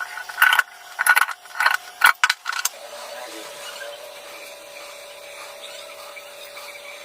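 Metallic clicking and clattering for the first couple of seconds, then a power drill's motor starts and runs at a steady speed with a constant whine.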